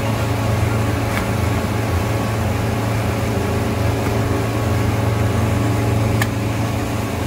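Suzuki outboard motor running steadily at speed, with a low drone, over the rush of water from the boat's wake.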